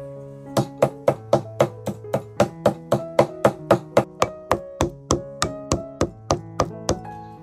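A cleaver mincing raw chicken on a chopping block: quick, even chops, about four a second, starting about half a second in and stopping near the end, over background music.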